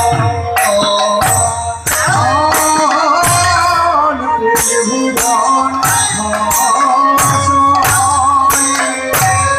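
Bengali kirtan music: a khol drum beating low strokes that bend in pitch, with kartal hand cymbals ringing on the beat about every half second, under a sustained, wavering melody line.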